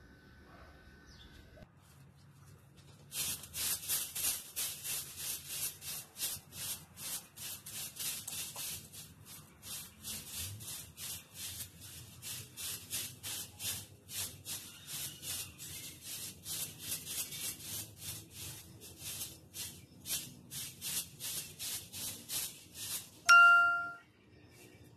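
A stiff-bristled broom sweeping a grass lawn: a steady run of short scratchy strokes, about three a second, starting a few seconds in. Near the end a single short bright ding rings out, louder than the sweeping.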